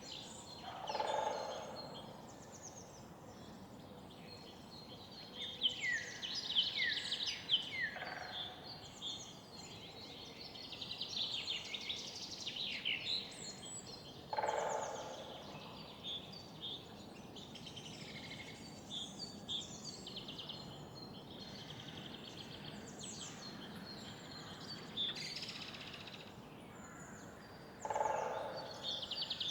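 Morning city-park ambience: several songbirds singing and calling over one another over a steady background hum of the city. Four short, lower bursts of about a second each come at intervals.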